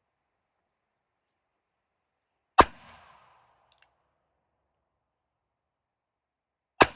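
Two gunshots about four seconds apart, each followed by a short echoing tail and a faint tick about a second later.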